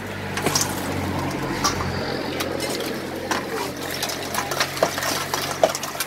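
Wet mixing of raw blue crab in a spicy salad dressing, stirred with a metal ladle in a stainless steel bowl, with frequent small clinks and scrapes of the ladle against the bowl.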